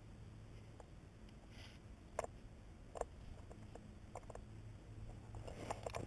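Faint rope handling while a figure eight on a bite is tied: scattered soft clicks and rustles, two sharper clicks around two and three seconds in, and a busier patch of clicking and rustling near the end.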